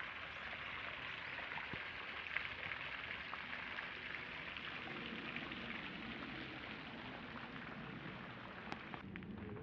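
Small pond fountain splashing steadily, its spray falling back onto the water with a rain-like patter. About nine seconds in the splashing cuts off and a few sharp clicks follow.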